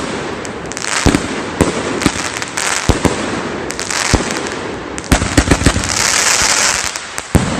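A 500-gram, 30-shot consumer firework cake firing a rapid volley of sharp reports that come thickest about five to six seconds in, with a stretch of hissing between the shots.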